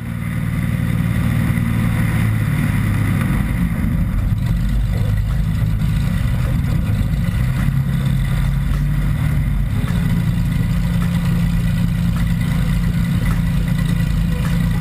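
Light aircraft's piston engine and propeller running steadily at taxi power. The engine note shifts slightly in pitch a few times.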